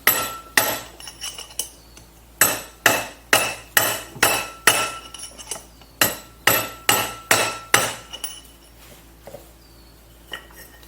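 Hammer blows on a steel punch driving at a seized part of a Polaris 750 jet ski pump, each strike ringing metallically. They come in three runs of about two blows a second and stop about eight seconds in. The part does not move: it is corroded fast.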